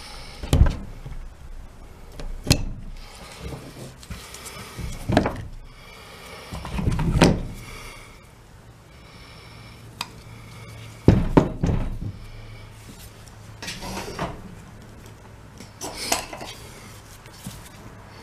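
A folding knife cutting and scraping the rubber jacket of a power-tool cord while it is stripped, with scattered sharp knocks and rustles as the cord and tools are handled and set down.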